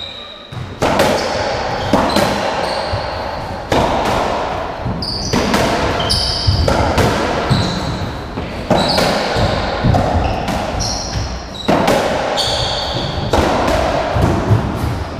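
A doubles racketball rally on a squash court: the hollow rubber ball smacking off rackets, walls and the wooden floor, each hit echoing, about one a second. Trainers squeak on the floor between shots.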